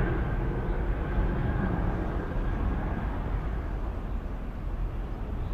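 Airbus A380-861's four Engine Alliance GP7200 turbofans at taxi power as the airliner rolls slowly past: a steady low rumble with a faint high whine that fades out about halfway through.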